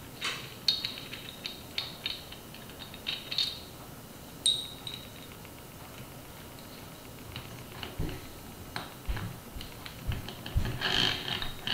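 Small metal clicks and clinks of a Sachs 5-speed internal gear hub's parts being handled: the ring gear being worked onto the planetary gear cage. The clicks come scattered, with a quieter stretch in the middle and a few dull knocks near the end.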